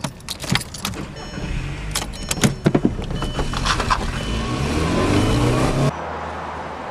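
Keys rattling in a Volkswagen's ignition, then the car's engine running and climbing in pitch as it pulls away and accelerates. The engine sound cuts off abruptly near the end, leaving a steady, quieter outdoor background.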